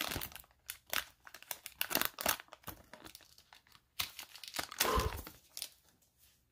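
Foil wrapper of a vintage Pokémon Base Set booster pack crinkling and tearing as it is pulled open by hand, in irregular crackles that stop near the end.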